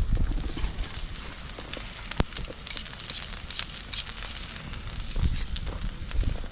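Wood campfire crackling with scattered sharp snaps and one loud pop, among low knocks and thuds near the start and again near the end.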